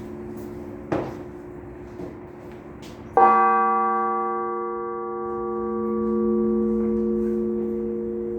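Church bells rung in a festive peal: two light strokes a second apart over the hum of a bell still ringing, then a big bell struck about three seconds in, its tones ringing on and slowly fading.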